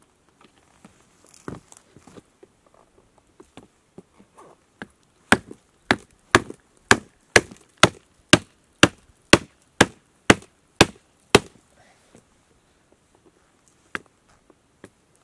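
Wooden baton striking the spine of a Heidi Production Knife No.1, a small fixed-blade knife, to drive it into dry wood (batoning). About a dozen sharp wooden knocks, two a second, start about five seconds in, with a lone knock before them and another near the end.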